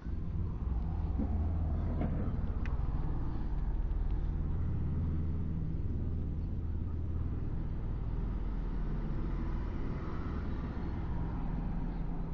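Steady low rumble of a motor vehicle running, starting abruptly.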